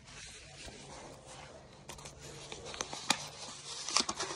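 Soft rustling with scattered sharp clicks, denser in the second half, from the phone being handled and moved close to its microphone, over a faint steady low hum.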